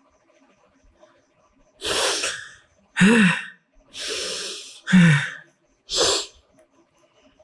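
A young man crying: five sharp, breathy sobs about a second apart, two of them with a short voiced cry.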